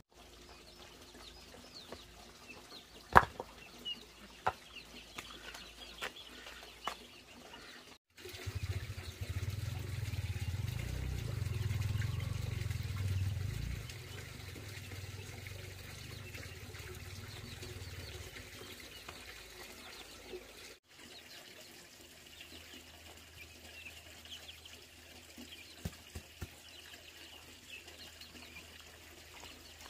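Outdoor farmyard sound across several cuts: scattered knocks and clatter of wood being handled in the first few seconds, a low rumble for several seconds in the middle, and small birds chirping in the background.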